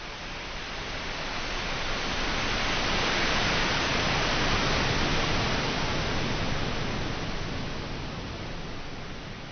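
Ocean surf: waves breaking and washing up the beach as a broad, even hiss that swells to a peak a few seconds in, then slowly ebbs away.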